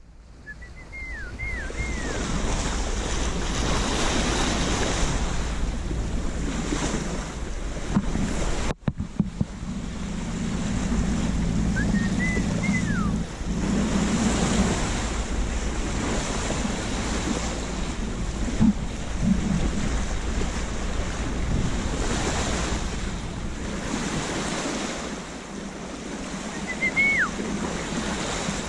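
Sea water rushing along the hull of a sailboat under sail, with wind buffeting the microphone. Three brief high chirps sound over the wash, about a second in, near the middle and near the end.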